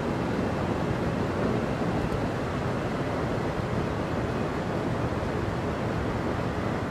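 Steady rush of air from a Trane air handler's indoor blower running at full speed.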